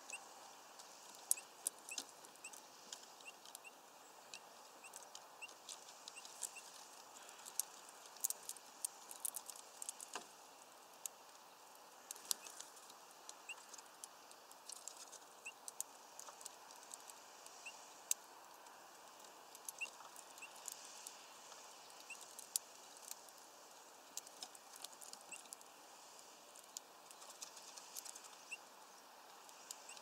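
Small birds at a feeder: irregular quick clicks and taps of pecking, with faint short high chirps repeating about once a second.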